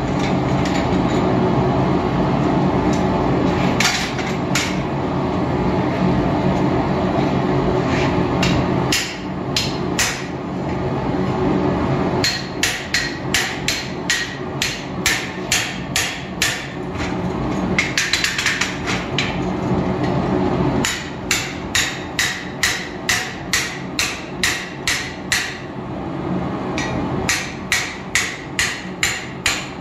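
Blacksmith's hand hammer striking hot steel on the anvil, including blows on a punch held on the glowing bar. There are a few scattered strikes at first, then from about twelve seconds in runs of quick, even blows, about two a second, broken by short pauses. A steady hum runs underneath.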